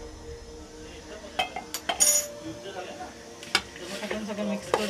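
A metal spoon clinking against a stainless steel mixing bowl, several sharp clinks with a brief ring clustered about one and a half to two seconds in and a couple more later, while hands toss chopped spinach leaves with spices in the bowl.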